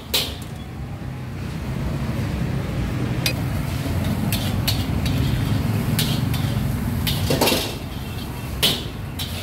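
Street-food stall ambience: a steady low rumble of passing traffic, with scattered clinks and knocks of dishes and utensils, a louder clatter about seven seconds in.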